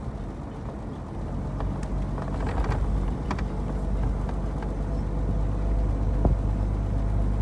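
Vintage car's engine running with road noise, heard from inside the cabin, getting louder about two seconds in, with a few light knocks and rattles.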